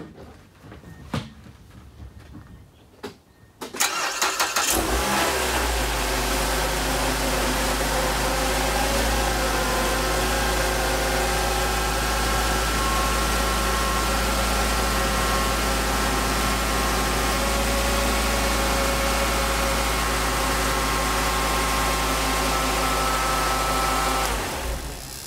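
A 2011 Mazda3's four-cylinder engine is started about four seconds in after a few faint clicks, idles steadily for about twenty seconds, and is switched off near the end. It is running so that the automatic transmission's own pump pushes about a quart of old fluid out through the disconnected cooler line during a fluid flush.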